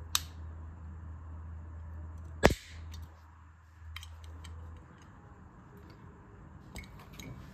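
Metal toy cork revolver dry-fired, its hammer snapping down once with a sharp, loud metallic click about two and a half seconds in. Lighter clicks of the gun being handled come before and after.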